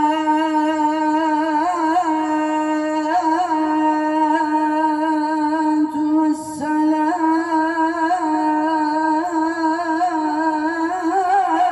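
A man chanting the sela, the Islamic call of blessing upon the Prophet, amplified through a microphone and stage loudspeakers. He holds long drawn-out notes decorated with wavering turns, takes a short breath about six seconds in, and then carries on.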